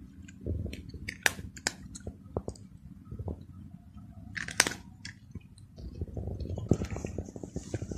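Egyptian Mau cat crunching and chewing dry kibble eaten from a hand, in irregular crunches that come thicker and faster over the last two seconds.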